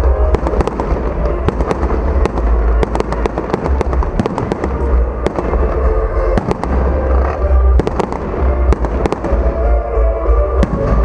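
Fireworks display: many sharp bangs and crackles of bursting shells in quick, irregular succession, over music and a deep low rumble.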